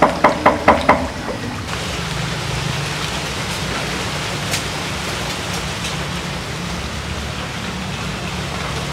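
A rapid, even knocking, about six strikes a second, stops about a second in. Then a steady hiss of water pattering on a pond surface follows, with a few faint ticks.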